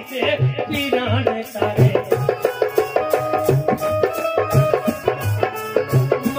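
Instrumental break in Punjabi folk music: a tumbi plucked in a quick run of repeated short notes over a steady hand-drum beat.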